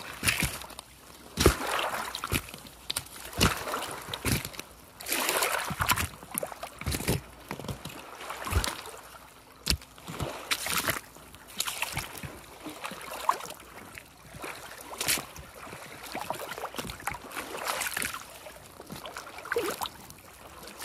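Small lake waves lapping and splashing against a rocky shore, in irregular washes about every second or two, with now and then a sharper splash.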